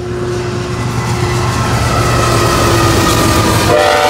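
Two GE ET44AC diesel-electric locomotives leading a freight train approach and pass, their engines a steady drone that grows louder. About three and a half seconds in, a multi-chime locomotive air horn starts to sound.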